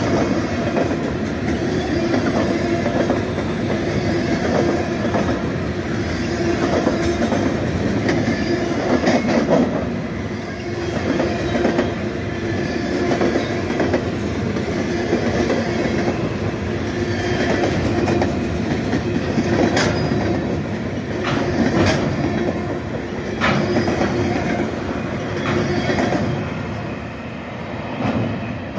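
Freight cars of a CSX train rolling steadily past, their wheels clacking irregularly over the rail joints above a constant rumble with a steady whining tone underneath. It fades near the end as the last cars move away.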